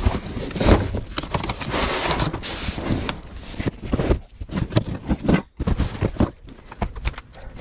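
Cardboard box of books being lifted and carried: rustling and scraping of cardboard with irregular knocks and thumps.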